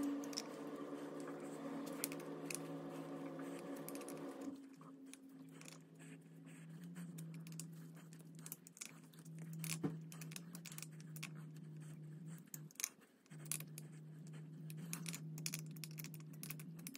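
Allen key clicking and scraping in the cap screws of a manual locking hub as they are cinched down one after another: scattered small metallic clicks. A steady low hum runs underneath and drops lower about four and a half seconds in.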